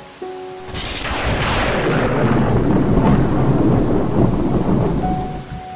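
Thunder over heavy rain: the clap breaks about a second in and rolls on as a deep rumble for several seconds, dying down near the end.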